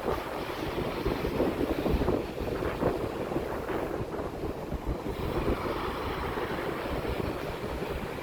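Sea waves washing in, swelling and easing, with wind buffeting the microphone in gusts.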